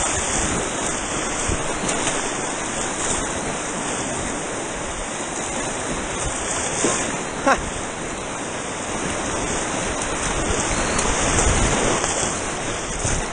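Steady rush of fast-flowing river water around a kayak.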